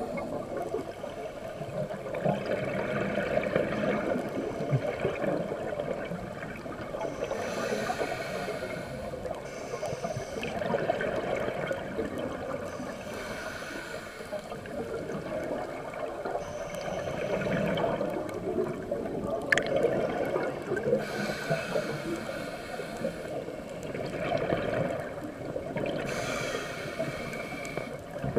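Scuba breathing underwater: exhaled air bubbling out of a regulator in a rush every few seconds, over a steady underwater hiss.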